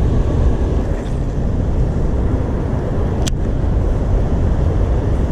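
Loud, steady rumbling rush of wind buffeting the action-camera microphone, over the fast-flowing water below the dam. A single sharp click about three seconds in.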